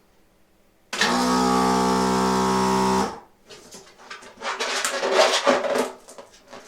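Electric food mixer motor run for about two seconds, blowing air into a latex balloon. It starts about a second in and stops abruptly, and a couple of seconds of handling noise follow.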